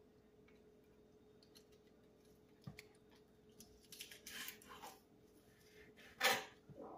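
Faint knife-and-leaf sounds of Swiss chard being stemmed with a chef's knife on a cutting board: light taps and clicks, soft rustling and scraping of the leaves, and a louder brief brush near the end. A faint steady hum runs underneath.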